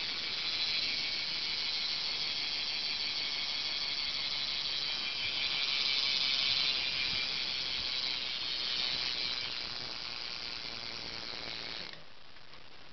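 BMX bike's rear hub buzzing as the wheel is spun fast by hand: the pawls click so quickly that they run together into a steady ratcheting buzz. The buzz cuts off near the end.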